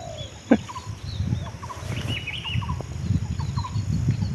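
Spotted dove cooing in short repeated phrases, with smaller birds chirping higher up. A sharp knock comes about half a second in, and a low rumble of wind or handling noise grows underneath.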